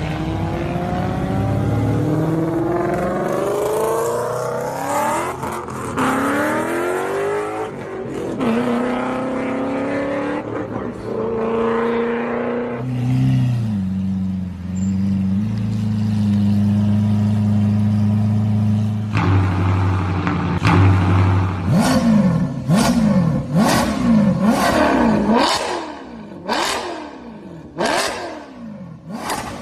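A small RC rock-crawler car's motor whining, its pitch gliding up and down with the throttle, then held steady for several seconds. Near the end it is revved up and down in quick repeated sweeps, about one a second.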